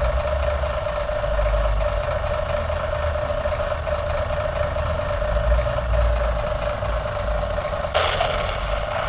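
Radio-controlled model M4 Sherman tank running with a steady hum while its turret traverses to face forward. A harsher whirring layer joins near the end.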